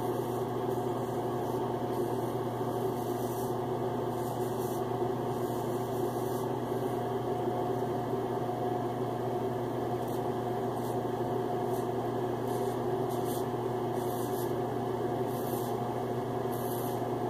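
A Gillette Tech double-edge safety razor scraping through head stubble in short, irregular strokes. The strokes are faint under a steady mechanical hum.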